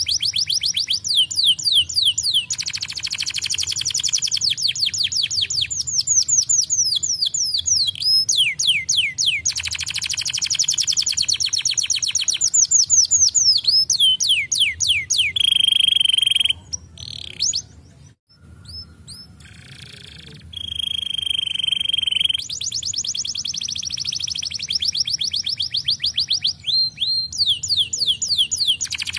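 Canary singing long rapid trills of quickly repeated falling notes. Twice it holds a steady high whistle, and about halfway through there is a short break before it starts again.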